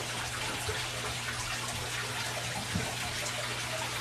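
Aquarium filters running on a large fish tank: a steady rush of moving water with a low, even hum.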